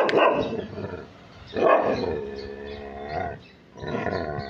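A dog barks once, then gives two drawn-out howling whines, the first about a second and a half long and wavering in pitch near its end, the second shorter.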